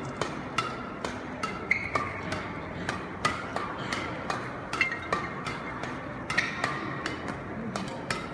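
Badminton rackets striking a shuttlecock in a fast close rally, sharp cracks about twice a second.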